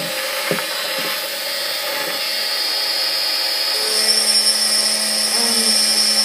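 Small handheld Xtreme Challenge rotary drill running at high speed, its fine bit grinding into a glass wine bottle to engrave it: a steady, high-pitched whine. About four seconds in, the whine shifts and gets a little louder, and a low hum joins it.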